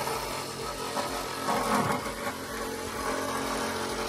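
Handheld cordless power tool running in one long steady run while working bolts on the car's front end.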